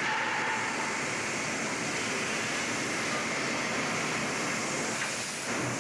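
Steady rushing din of a locomotive repair shop, even and without a clear pitch, dipping briefly near the end.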